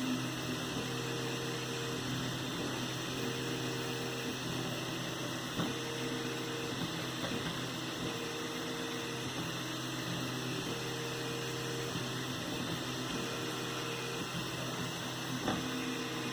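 3D printer running: a steady hum under stepper-motor tones that come and go in stretches of about a second as the axes move, with two faint clicks.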